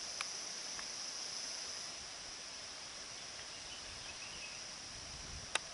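Steady high drone of insects, with the faint low rumbling of a Merapi lava avalanche coming down the volcano's slope, swelling about four seconds in. A sharp click just after the start and a louder one near the end.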